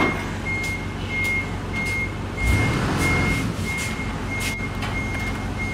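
A high electronic warning beep repeating about every 0.6 seconds, a little under two a second, over a low car engine hum that swells briefly about two and a half seconds in.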